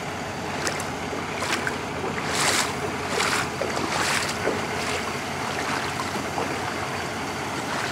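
Floodwater sloshing and splashing in a run of bursts about a second apart over the first half, over a steady rushing background.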